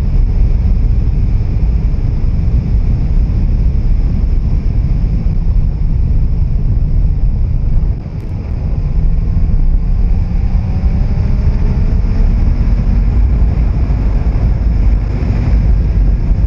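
Loud wind rush on a helmet microphone at riding speed over a Suzuki Hayabusa's inline-four engine. About eight seconds in the sound dips briefly, then the engine note rises for a few seconds as the bike pulls away again.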